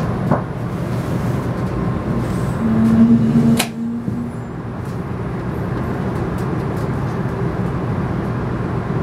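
Steady low rumble of cabin noise inside a Shinkansen train car, with a brief steady hum about three seconds in and a single sharp click.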